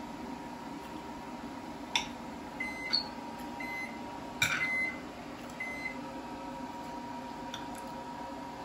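Knife and fork clinking and scraping on a porcelain plate while food is cut, with a few sharp clinks. Four short high tones come about a second apart in the middle.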